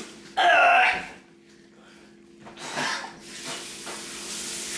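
A man gagging and retching into a plastic bag, with one loud heave about half a second in, after swallowing deep-fried insects. A steady hiss builds near the end.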